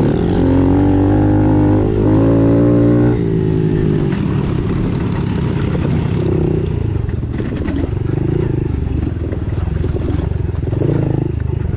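Honda CRF110 pit bike's single-cylinder four-stroke engine running at steady revs under throttle, then easing off about three seconds in to lower, uneven running with a few short blips of throttle, with wind and trail clatter on the helmet camera.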